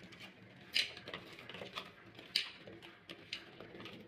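Raw bitter gourd rings being tossed and rubbed together by hand on a plate to coat them with spice powder: irregular light clicks and scrapes, a few a second, as the rings knock against each other and the plate, with louder clacks about a second in and about two and a half seconds in.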